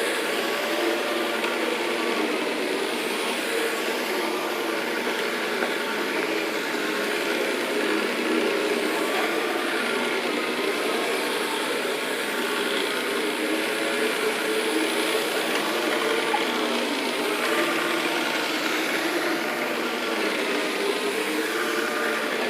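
Carpet cleaning machine's motor running steadily, with a hum that wavers slightly in pitch.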